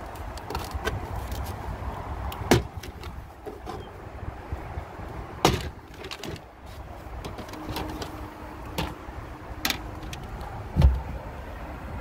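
Plastic clips on a Tesla Model 3 cowl cover panel popping loose as the panel is pulled up by hand. There are about five sharp snaps spread over the stretch, the last one the loudest with a dull thud, over a steady low rumble.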